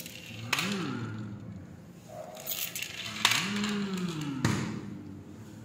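Die-cast toy cars driven by hand across a granite floor and knocked into each other: two sharp knocks, about half a second and three seconds in, each followed by a rolling rush of noise and a short low tone that rises and falls.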